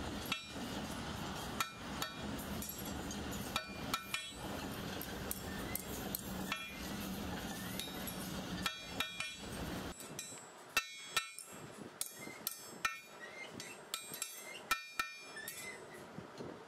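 Metal struck on metal: irregular sharp clinks, each with a short ring. A low steady hum lies under them for the first ten seconds or so, then stops abruptly.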